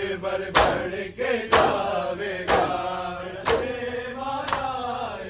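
A group of men chanting a noha together, with matam: a loud unison slap of hands on bare chests about once a second, keeping the beat of the chant.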